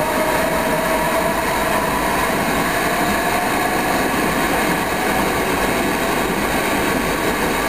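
Kawasaki R160B subway train with Siemens propulsion departing and running past on the adjacent track. A whine from the propulsion system fades within the first couple of seconds into the steady rush and rumble of wheels on rail as the cars go by.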